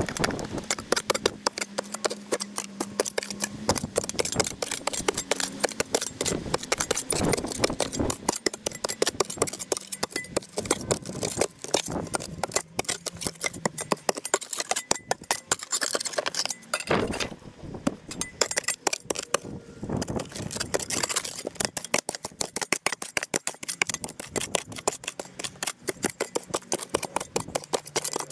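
Sped-up shovel digging: a rapid, dense run of scrapes and clinks as the shovel blade cuts into soil.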